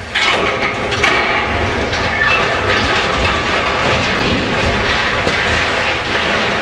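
Steel structure and sheet-metal ducting being torn down: a loud, continuous crash and clatter of falling metal debris, with short metallic squeals, starting abruptly just after the start.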